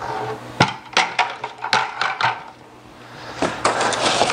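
White plastic brewing buckets handled and set down: a series of sharp knocks and clacks over the first couple of seconds. About three and a half seconds in comes a longer rustling scrape as hands dig into the cardboard box.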